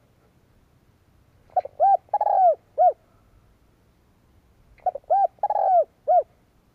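Spotted dove (cu gáy) cooing: two phrases about three seconds apart, each four notes: a short note, an arched note, a longer drawn-out note and a short closing note, each rising then falling in pitch. It is the male's territorial call, used as a decoy call to draw in wild doves.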